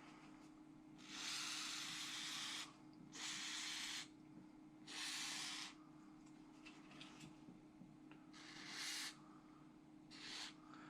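Aerosol can of silicone oil sprayed in five short bursts of hiss, the first the longest and the last the briefest, lubricating the metal-on-metal moving parts of a gas blowback airsoft pistol.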